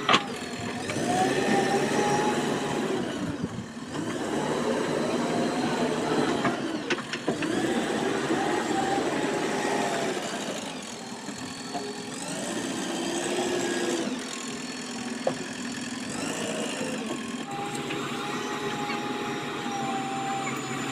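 JCB 3DX backhoe loader's diesel engine revving up and falling back in repeated swells under working load, settling to a steadier run near the end. A sharp click right at the start.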